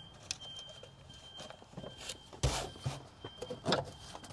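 Scattered knocks, clicks and rubbing as a gloved hand works an S65 V8 ignition coil down past the air-conditioning line into its spark-plug well in a cramped engine bay. The loudest is a dull thump about halfway through, with another knock near the end.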